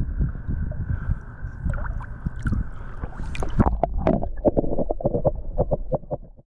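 Water sloshing and gurgling around a camera held at the waterline, with a steady low rumble. After about three and a half seconds it turns muffled and underwater, with a run of quick knocks and bubbling, then cuts off just before the end.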